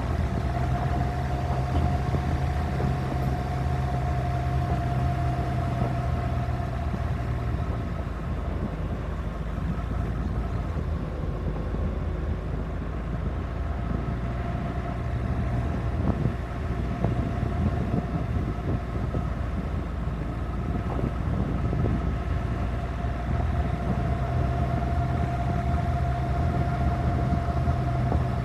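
Suzuki Grand Vitara driving on a gravel road: a steady engine hum with a constant whine above it, over tyre noise and small ticks from stones under the wheels. The engine hum fades for several seconds about a third of the way in, then returns.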